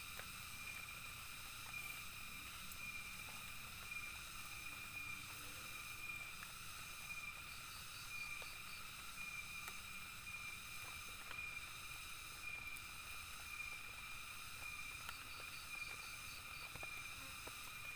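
Steady high-pitched chirring of forest insects, unbroken throughout. A faint short run of rapid ticks is heard twice, about halfway through and near the end.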